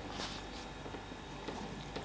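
Faint eating sounds at a table: a few soft clicks and squishes of food and mouth.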